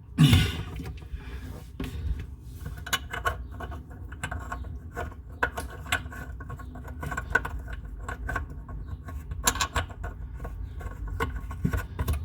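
Small metal faucet mounting parts clinking and rattling as they are handled and fitted by hand, with a louder bump just after the start.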